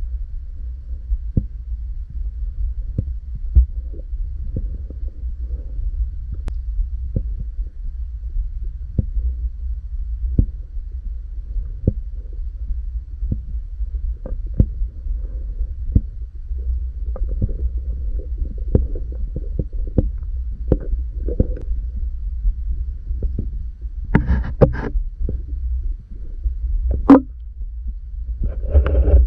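Muffled underwater sound through an action camera's waterproof housing as a diver swims: a steady low rumble with scattered small clicks and knocks, and two louder noisy bursts near the end.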